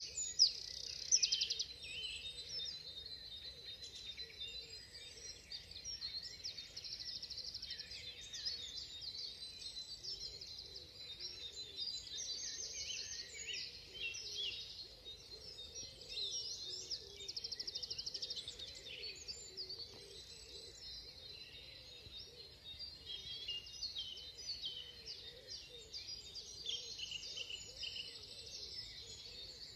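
Dawn chorus of many songbirds singing at once: overlapping songs, trills and chirps with no break, with a nearby bird loudest in the first couple of seconds.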